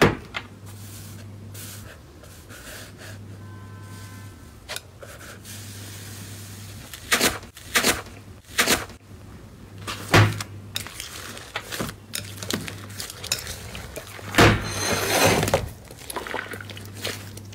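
Slime being pressed, poked and squeezed by hand: a series of short sharp pops and clicks, the loudest about ten and fourteen seconds in, followed by a longer stretch of crackling squishes. A low steady hum runs underneath.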